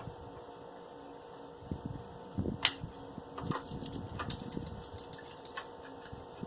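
A few scattered light clicks and knocks of handling, the loudest about two and a half seconds in, over a faint steady hum.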